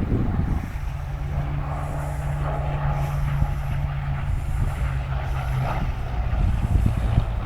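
Hawker Hurricane's Rolls-Royce Merlin V12 piston engine running, its propeller turning, at a steady pitch.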